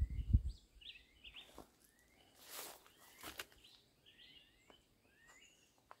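Small birds chirping in many short sliding notes, over a few footsteps rustling through dry leaves and brush, with a low thump about a third of a second in.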